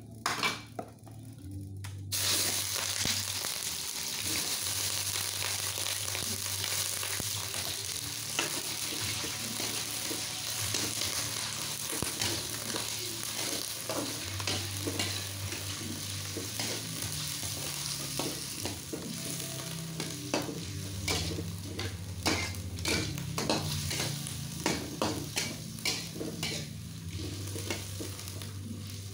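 Squid rings frying in hot oil in a wok: the sizzle starts suddenly about two seconds in as they go in. A spatula scrapes and knocks against the wok as they are stirred, more often near the end.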